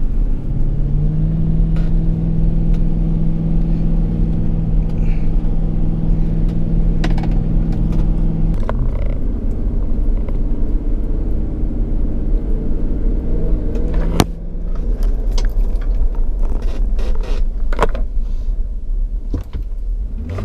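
Road and engine rumble inside a moving SUV's cabin, with loose items in the vehicle rattling and clicking, most often in the second half. A steady drone runs through the first several seconds.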